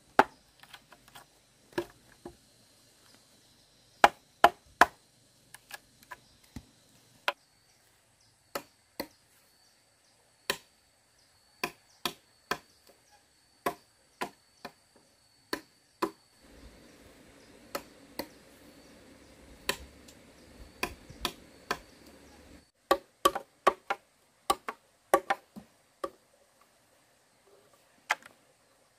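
A blade chopping with sharp, irregular strokes, about one or two a second, now and then in quick runs of two or three.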